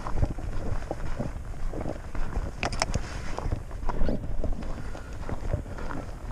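Footsteps on a dirt trail with a low, steady wind rumble on the microphone; a brief sharp rustle comes about two and a half seconds in.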